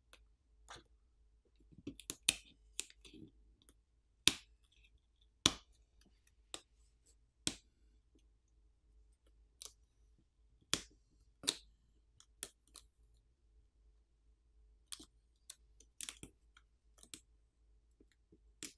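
Scattered, irregular sharp clicks and taps of fingers and a plastic pry pick working on a smartphone's plastic camera cover while a ring-shaped sticker is pried up and peeled off.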